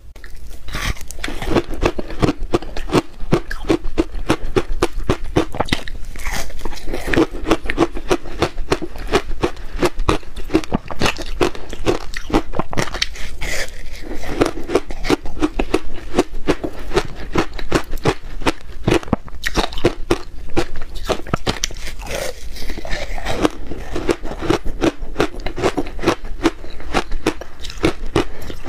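Biting and chewing a slab of frozen matcha ice with a crushed-ice topping: a continuous stream of many quick, hard crunches.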